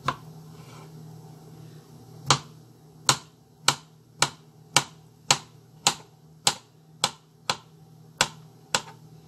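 Knife chopping boiled carrots on a cutting board: about a dozen sharp knocks, roughly two a second, starting a couple of seconds in.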